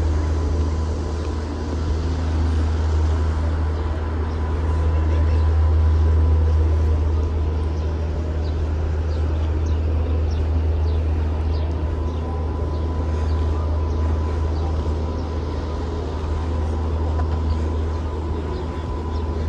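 Steady low rumble of city traffic, with a thin, steady whine riding over it.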